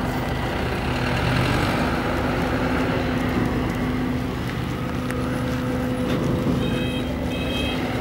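A vehicle engine running steadily with a low hum. Near the end, a few short high-pitched beeps sound in a row.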